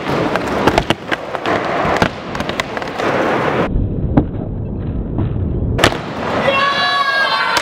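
Skateboard riding a mini ramp: polyurethane wheels rolling with a rough rumble, broken by repeated sharp clacks and knocks of the board and trucks hitting the ramp and its metal coping.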